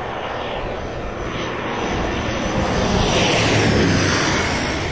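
Propeller aircraft flying over, an even engine noise that grows louder to a peak about three and a half seconds in and then begins to fade.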